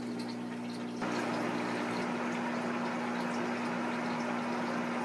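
Aquarium sponge filter bubbling over a steady hum, with the bubbling noise stepping up louder about a second in.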